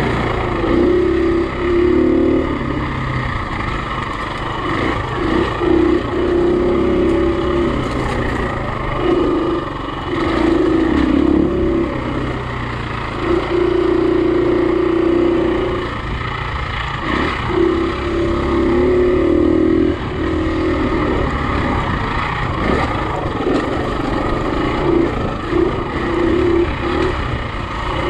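Four-stroke single-cylinder enduro dirt bike engine under riding load. The rider opens the throttle in about eight bursts of one to three seconds each and rolls off between them.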